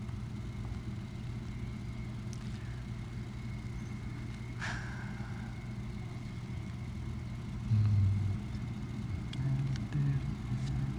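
Steady low engine hum, like a vehicle idling, with one short click about halfway through and a few brief low sounds near the end.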